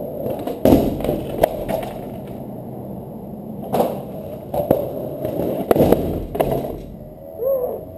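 Skateboard wheels rolling, with about six sharp clacks and thuds as the board pops, lands and strikes a slanted cellar door.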